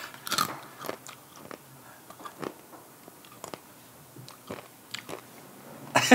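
Close-up chewing of a mouthful of sauce-dipped ramen: scattered wet mouth clicks and smacks, a little louder in the first second.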